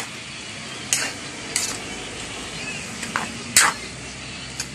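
A metal utensil clanking and scraping against a wok as noodles are tossed and stirred, about half a dozen irregular strikes over a steady soft sizzle of the pan.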